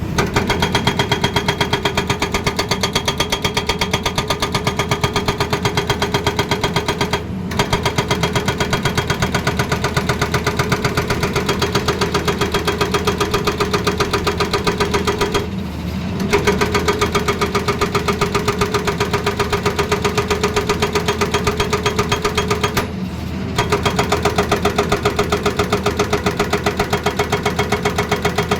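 Excavator-mounted hydraulic breaker hammering in a rapid, even rhythm of blows over the running engine, stopping briefly three times.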